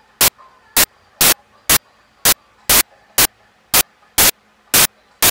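Glitching playback audio: short, loud bursts of static repeating about twice a second, with only a faint tone between them.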